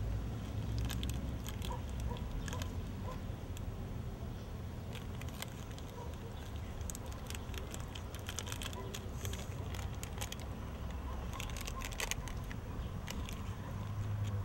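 Chip bag crinkling and crackling as fingers dig the crumbs out of it, in irregular clusters of crackles over a steady low rumble.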